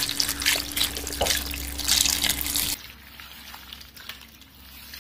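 Water pouring in a stream into a metal basin of oyster mushrooms. It stops about three seconds in, followed by quieter wet handling sounds as hands wash the mushrooms.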